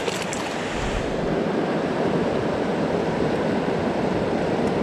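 Steady rushing of a stream's water flowing over rocks.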